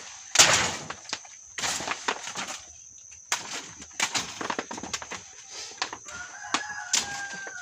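Thick, fleshy taro-like (badú) stalks being chopped and torn with a blade: a series of sharp cuts and snaps with leaves rustling between them, the loudest strike about half a second in. Near the end a chicken calls faintly with a drawn-out note.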